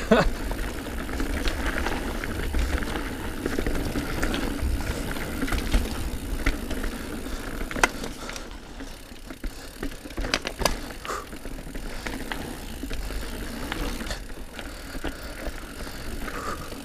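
Diamondback Release 3 mountain bike rolling over dirt singletrack: tyre noise, drivetrain and frame rattle, and a steady low rumble. A few sharp knocks from bumps come about eight seconds in and twice around ten seconds.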